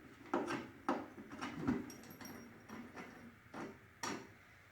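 Irregular clicks and knocks of metal parts being handled and fitted by hand while a Shopsmith part is installed, about five separate knocks with the last about four seconds in.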